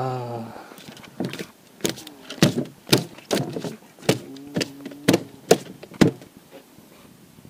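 A short voiced grunt, then a run of sharp knocks and clunks, about eight spread unevenly over five seconds, a few of them with a brief ringing tone.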